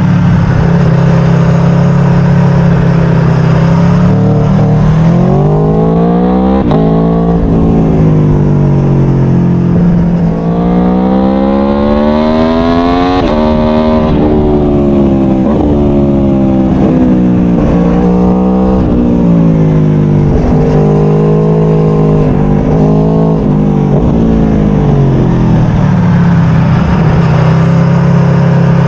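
Aprilia Tuono V4 1100's V4 engine under way, climbing in pitch as it accelerates and dropping sharply at gear changes. It falls back off the throttle and through quick runs of stepped downshifts into the bends.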